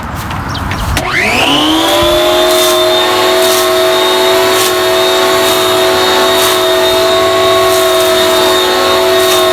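Corded electric Garden Groom Midi hedge trimmer starting up: its motor spins up with a rising whine about a second in, then runs at a steady high whine.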